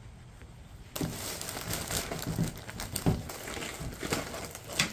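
Plastic bags or packaging crinkling and rustling as they are handled, starting about a second in, with a number of sharper crackles.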